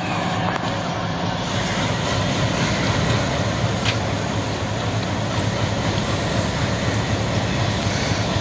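Twin WDM-3D ALCO-design diesel locomotives working under power as they accelerate, a steady loud low engine drone.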